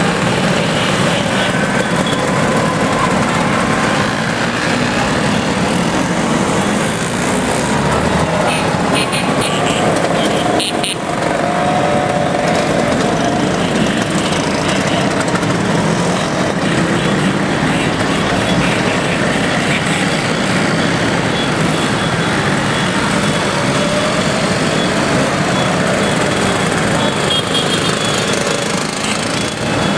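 A steady stream of Vespa scooters riding past, many small engines running together with the pitch of single scooters rising and falling as they pass.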